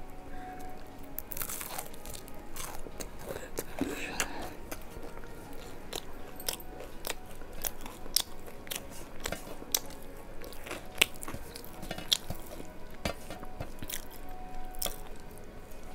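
Crisp crunching bites and chewing of a deep-fried kulekhara leaf fritter (bora), close to the microphone: a long irregular string of sharp crunches.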